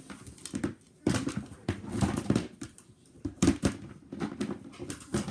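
Plastic dinosaur toys clacking and knocking together as they are rummaged through and handled in a toy box, in a string of irregular short knocks.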